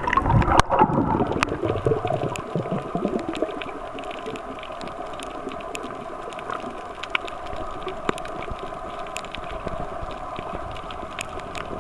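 Underwater water noise from a snorkeler's camera: churning and bubbling for the first few seconds, then a steadier, quieter underwater hiss scattered with sharp clicks.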